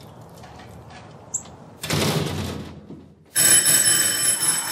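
A short rush of noise about two seconds in, then a loud, continuous electric bell ringing starts just after three seconds in.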